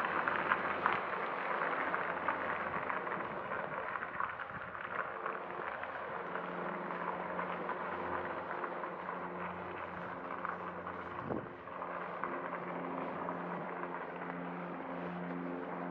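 Street ambience: a broad rushing vehicle noise, loudest at the start and slowly easing off. About six seconds in, a steady engine drone sets in and pulses slightly.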